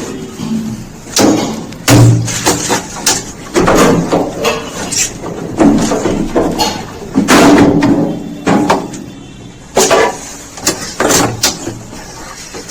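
Repeated knocks and clatter of a top-load washing machine's tub and suspension rods being handled as a rod is unhooked and fitted.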